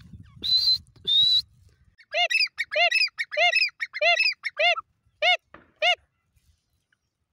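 Grey francolin (Dakhni teetar) calling: two short, harsh, rising notes, then a loud run of about seven ringing call notes at roughly one every 0.6 s.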